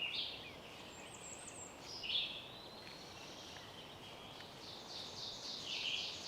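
Songbirds singing in short, high-pitched phrases, ending in a quick run of repeated notes.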